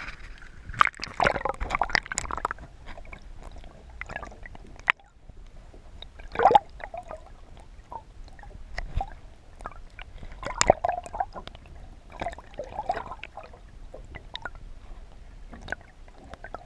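Water sloshing and gurgling against a camera held at and just under the surface, with irregular clicks and knocks and a few louder splashy surges.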